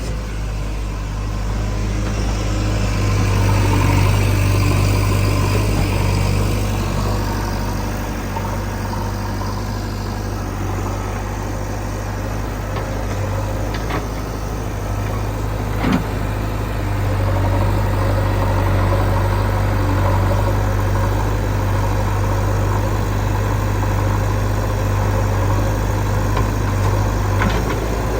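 Heavy diesel engine running steadily with a deep hum, growing louder a few seconds in and again past the middle. A sharp knock comes about halfway through, and another near the end.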